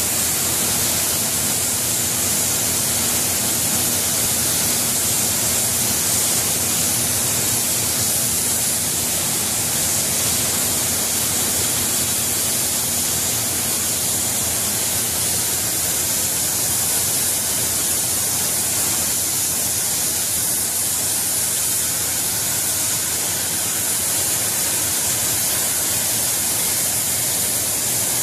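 A row of oxy-fuel cutting torches on a gantry cutting machine hissing steadily as they burn through a steel plate, with a faint low hum in the first half.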